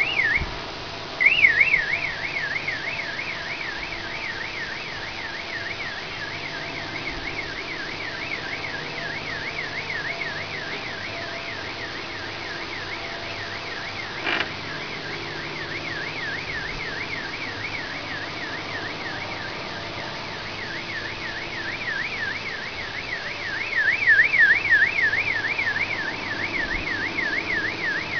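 Car alarm siren warbling rapidly up and down, about three sweeps a second. It chirps briefly, cuts out, then starts again about a second in and keeps going, over a steady background noise.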